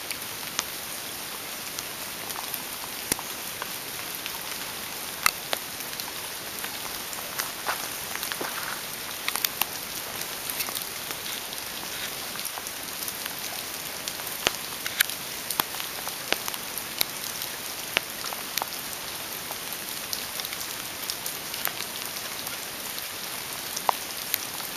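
Steady hiss of rain falling on forest foliage, with irregular sharp ticks of drops.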